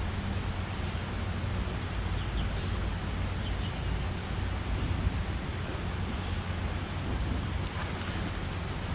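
Steady low rumble and hiss of wind on the microphone, mixed with the drone of traffic on the road bridge overhead.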